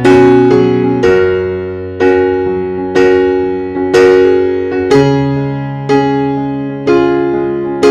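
Background music: slow piano chords, one struck about every second and left to fade before the next.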